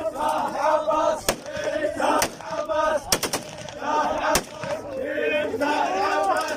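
Men's voices chanting an Iraqi hosa together, broken by about five sharp gunshots, two of them close together a little after the midpoint.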